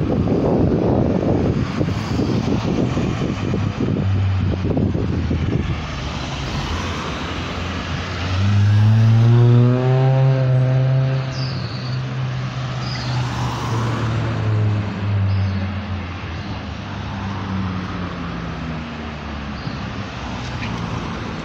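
Road traffic passing a city street intersection, cars driving by. About eight seconds in, one vehicle's engine note grows loudest, rising in pitch, holding, then slowly falling away over several seconds as it passes. Wind gusts rumble on the microphone for the first few seconds.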